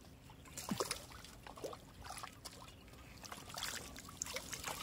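A hooked tilapia splashing at the water's surface as it is drawn in on the line: a run of irregular splashes and drips, the loudest just under a second in.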